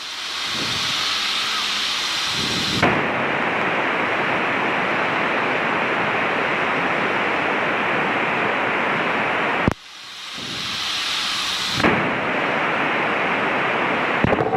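Loud, steady hiss of static from a Cessna 152's COM radio, heard through the intercom, which the pilot thinks is the radio slowly dying. It drops out sharply for a moment nearly ten seconds in, then swells back.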